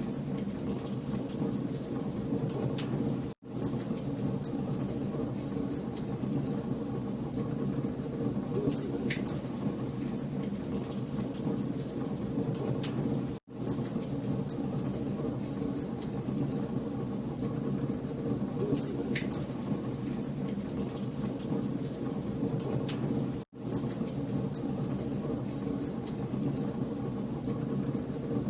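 Wood fire burning in a fireplace: a steady low rumble of flames with scattered sharp crackles and pops. The sound cuts out for an instant about every ten seconds.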